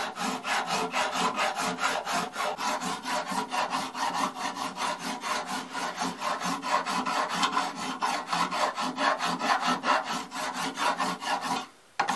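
Steel hand file being draw-filed across a cast brass long-rifle butt plate clamped in a vise: a quick, even run of rasping strokes. This blends and smooths the casting's surface before sanding.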